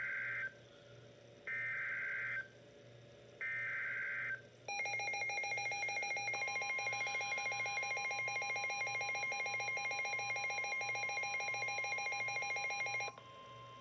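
NOAA Weather Radio SAME alert header: three short digital data bursts with a warbling two-tone sound, about a second each with short pauses between, the first already under way. Then the WR-300 weather radio's own alarm sounds as a fast-pulsing electronic beep. The steady 1050 Hz Weather Radio warning tone comes in under it a second and a half later and keeps going after the beeping cuts off near the end, announcing a Flood Warning.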